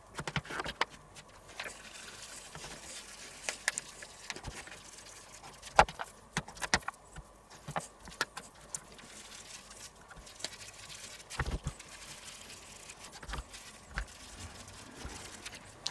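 Irregular soft taps, slaps and knocks of raw pork neck steaks being laid and pressed into a plastic container by hand.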